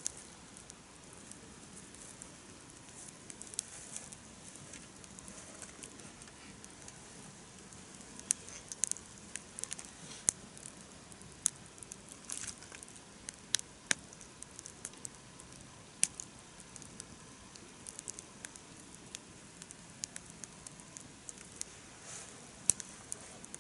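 Wood campfire burning steadily, crackling with irregular sharp pops.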